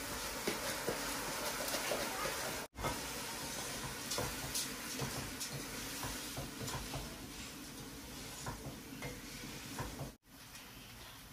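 Raw rice being stirred with a spoon in a pot of hot ghee, oil and fried onions: a steady sizzle with the spoon scraping and ticking against the pot. The rice is being fried before the water goes in for a biryani.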